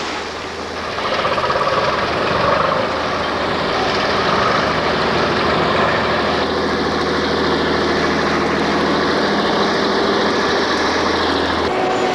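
Crawler bulldozer's diesel engine running steadily under load as it pushes a pile of dumped limestone rubble. The sound cuts off abruptly near the end and gives way to a different steady hum.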